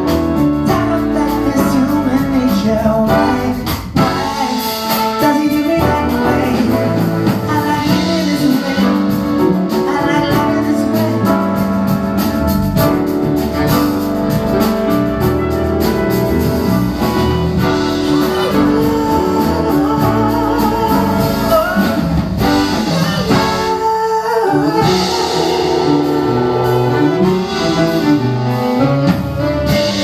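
A jazz band playing live, with grand piano and a saxophone section that includes a baritone sax. Just before the final quarter the music drops back briefly, then a new passage begins.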